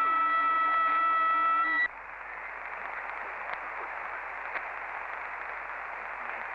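Sommerkamp CB transceiver receiving on the 11-metre band: a transmitted signal of several steady electronic tones held together. It cuts off abruptly about two seconds in, leaving the steady hiss of open-channel static.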